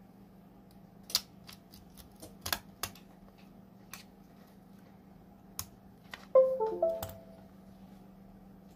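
Several sharp clicks, then a short computer chime of a few falling notes as a USB device is detected.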